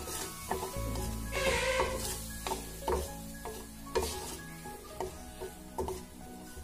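Spatula stirring and scraping a thick spice paste around a hot frying pan, with sizzling from the masala being fried down after a splash of hot water. The strokes repeat every half second or so, with a louder burst of sizzle about a second and a half in.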